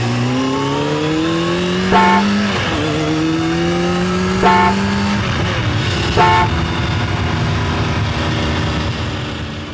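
Vehicle engine sound effect accelerating through the gears: the pitch climbs, drops at a gear change about two and a half seconds in, climbs again, then runs steadily and fades out near the end. Three short, bright blips, like button-tap sounds, come about 2, 4.5 and 6 seconds in.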